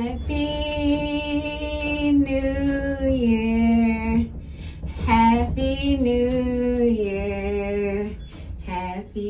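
A song with a woman singing long, held notes that glide from pitch to pitch over a steady low bass.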